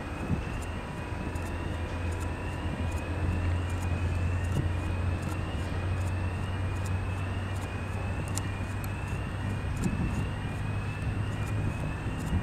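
Drone of a DR1-series diesel multiple unit's engines as the train rolls slowly closer, a steady low hum that swells slightly midway. A high chirp repeats about every two thirds of a second.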